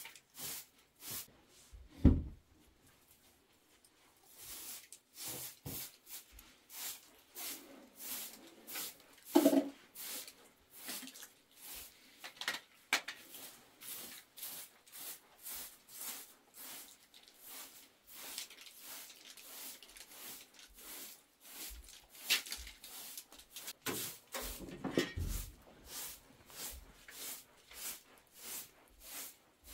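Short straw hand broom sweeping a rug, in quick brisk strokes about two a second. A few louder knocks and thumps come through, about two seconds in, near ten seconds and again near twenty-five.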